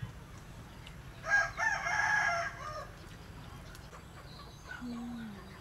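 A rooster crowing once, starting about a second in and lasting under two seconds, followed near the end by a faint, short, low falling call.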